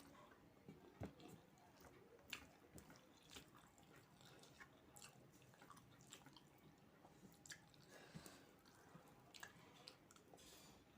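Faint eating sounds: a person chewing a mouthful of fried rice and chicken curry, with irregular soft mouth clicks and smacks.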